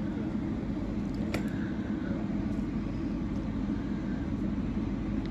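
Steady low rumble of railway platform background noise, with one sharp click about a second and a half in.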